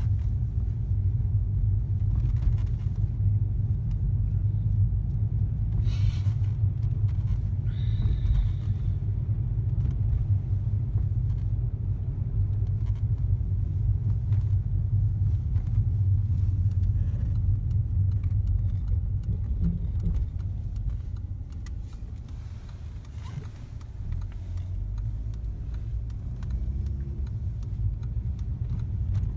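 A car driving: a steady low rumble of engine and road noise, easing off for a few seconds about two-thirds of the way through.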